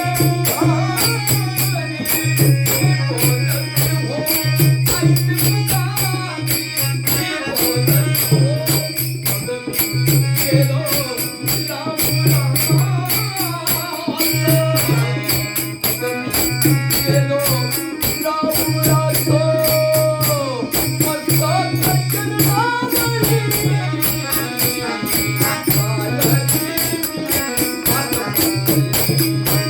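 Instrumental passage of a Marathi devotional song: a gliding melody line over a steady, fast jingling percussion rhythm and a pulsing low beat.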